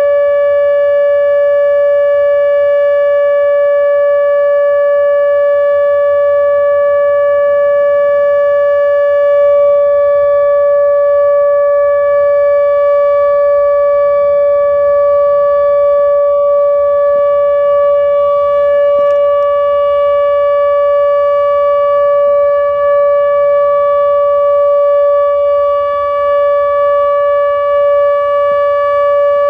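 ATI HPSS-32 electronic outdoor warning siren sounding the steady alert signal of its 4-minute test: one loud, unchanging pitch with overtones, without the rise and fall of a wail.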